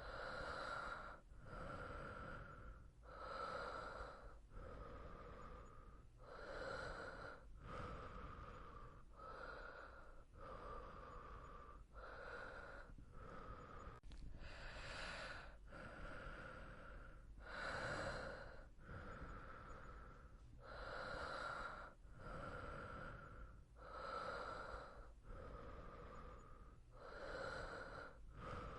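A person breathing softly and evenly in sleep through the nose and mouth. Inhales and exhales follow each other in a steady, slow rhythm, about one full breath every three seconds, over a faint steady low hum.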